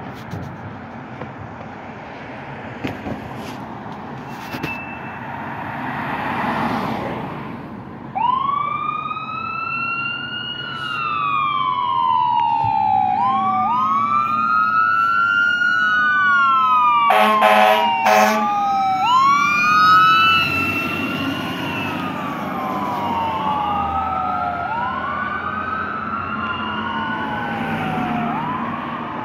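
Fire engine siren starting up about eight seconds in and wailing, each cycle a quick rise and a slower fall, with two short horn blasts near the middle and the truck's engine running beneath. Before the siren, only passing road traffic.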